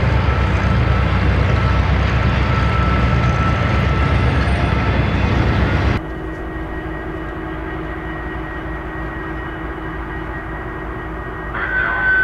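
Diesel-hauled freight train rolling past, a loud steady rumble of locomotive engines and rolling cars. It drops abruptly to a quieter, even diesel locomotive engine drone, with a brief higher tone near the end.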